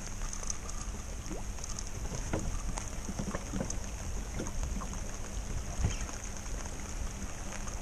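Small waves lapping and knocking against the hull of a small boat, with scattered light splashes over a steady low rumble and a high hiss.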